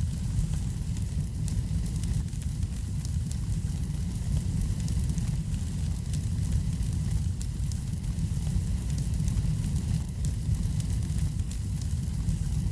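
Wood fire burning in a fireplace: a steady low rumble with frequent small crackles and pops.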